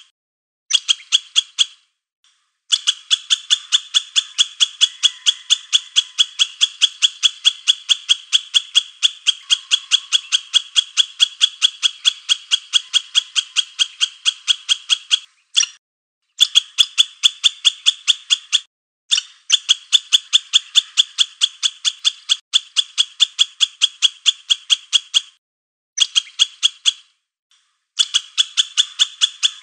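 A high-pitched animal call repeated rapidly, about four calls a second, in long runs that break off for a second or two several times.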